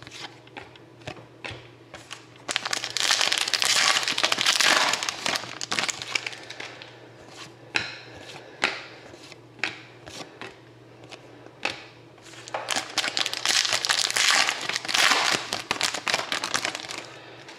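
Foil trading-card pack wrappers crinkling as packs are opened. There are two loud stretches of a few seconds each, about ten seconds apart, with light clicks and taps in between.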